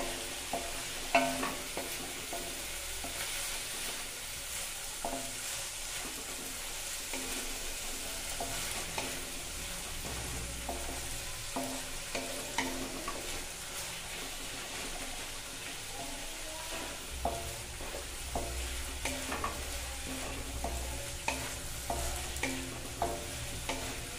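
Chopped vegetables sizzling in oil in a metal kadhai while a wooden spatula stirs them. The spatula knocks and scrapes against the pan at irregular intervals over a steady sizzle.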